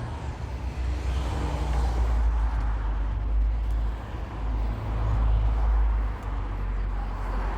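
Low, uneven outdoor rumble under a general hiss, dipping briefly about six seconds in.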